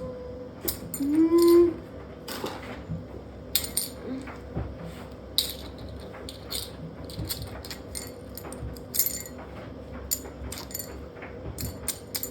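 Washing machine being wrecked with a loose object such as a brick inside: irregular metallic clattering and knocks over a steady hum.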